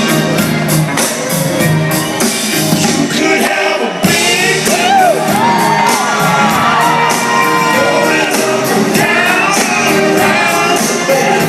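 Live rock band with lead vocals performing a pop-soul song with a steady beat, heard from the audience, with shouts and whoops from the crowd over the music.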